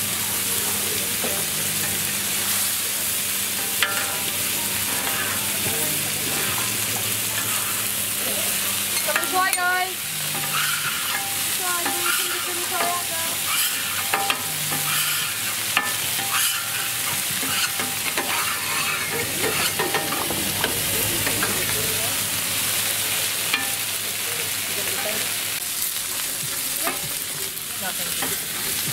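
Chicken thighs sizzling on a hot flat-top griddle, a steady frying hiss. Now and then there is a sharp click of the metal tongs and spatula against the plate.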